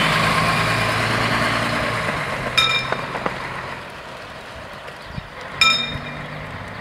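City bus engine running as the bus pulls away over the level crossing, its steady hum fading over the first few seconds. A short, bright ringing tone sounds about every three seconds, twice.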